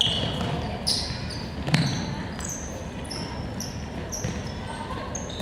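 Shoes squeaking on a court floor: many short, high squeaks from players moving, with one sharp ball bounce a little under two seconds in, over the steady noise of a gym hall.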